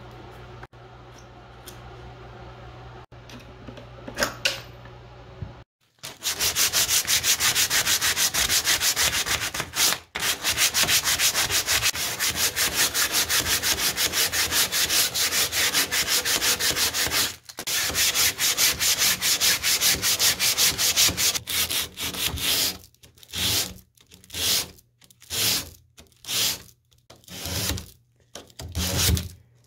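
Hand sanding the wooden frame of an antique washstand with a sanding sponge to scuff the old finish before painting: loud, fast continuous rubbing, breaking into separate strokes about every 0.7 seconds near the end. It opens with a quieter steady hum and a few light clicks as a screwdriver turns out screws from a cabinet door.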